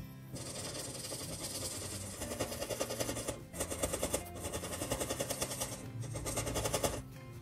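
A marker tip rubbing on paper in quick back-and-forth colouring strokes, stopping for a moment several times as the tip is lifted.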